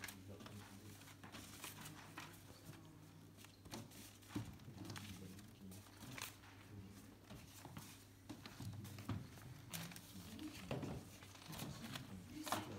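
Paper ballot envelopes and slips being opened and sorted by hand on a table: scattered soft rustles, crinkles and light taps, over faint low murmuring voices.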